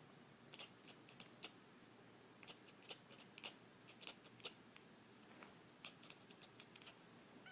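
Domestic cat chattering: faint, short, dry 'ch' clicks coming irregularly, a few a second.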